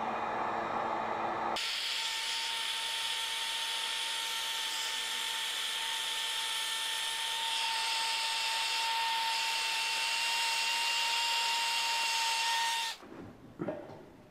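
Electric heat gun running, its fan giving a steady whine over a loud hiss of blowing air. The sound changes abruptly about a second and a half in and cuts off suddenly near the end, followed by a couple of brief handling knocks.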